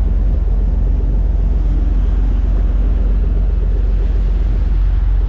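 Fishing boat's engine running steadily with a deep rumble, with wind on the microphone and the wash of the boat's wake.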